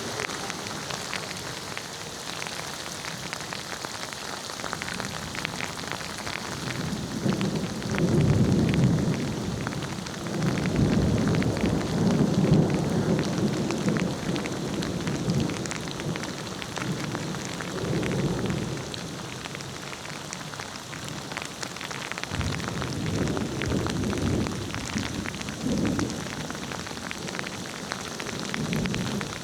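Steady rain falling and pattering on surfaces, with rolling thunder rumbling low several times, loudest about a quarter to halfway through.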